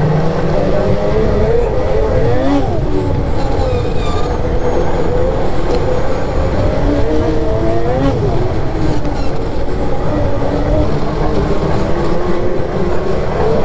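Turbocharged Polaris 650 two-stroke snowmobile engine running at part throttle around 5,000 rpm while riding along a packed trail, over a steady rush of track and wind noise. The engine note swells and drops back briefly twice, once about two and a half seconds in and again near the eight-second mark.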